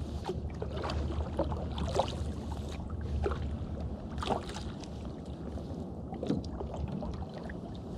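Double-bladed kayak paddle dipping into calm water on alternate sides, a light splash and drip with each stroke every second or two.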